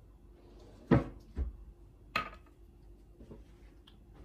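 Sharp plastic clicks from an Apple AirPods Pro charging case and earbud being handled. The loudest click comes about a second in, another follows close behind, a third comes just after two seconds and a faint one comes a little later.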